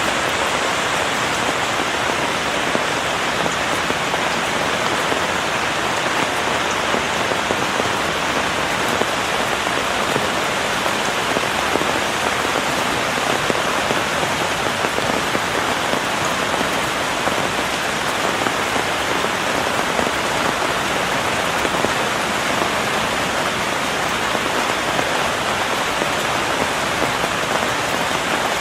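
Rain falling on a patio umbrella's fabric canopy: a steady, dense patter of drops at an even level.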